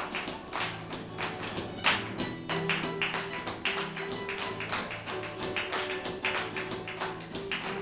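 Two flamenco guitars playing together in flamenco style, with a steady run of sharp, fast strummed and struck strokes over the held notes.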